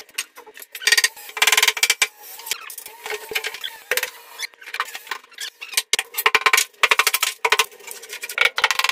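Irregular clatter of knocks and scrapes as formwork is pried and knocked off a freshly cast countertop, with louder flurries about a second in, around six to seven seconds, and near the end.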